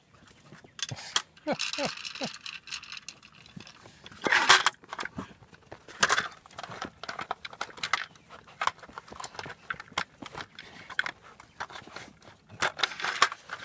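Plastic dog treat-puzzle toy rattling and clicking as puppies nose and paw at its sliding pieces, a quick irregular run of clicks and knocks with a louder clatter about four and a half seconds in.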